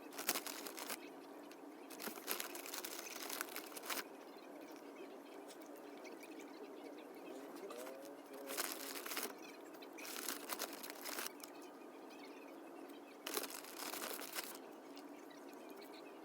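Close-up eating sounds: a handful of separate bursts of crunching, each up to a couple of seconds long, with short pauses between them.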